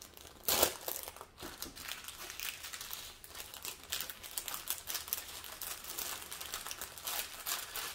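Small plastic bags of diamond-painting drills crinkling and rustling as they are handled and packed back into a container, with a louder rustle about half a second in.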